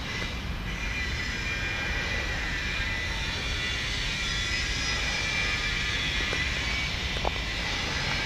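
Steady outdoor background noise: a low rumble with a hiss over it, even throughout.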